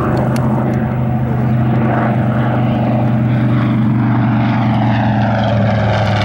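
Grumman TBM Avenger's Wright R-2600 twin-row radial engine and propeller droning steadily as the torpedo bomber flies past at low altitude. The pitch sags slightly in the second half.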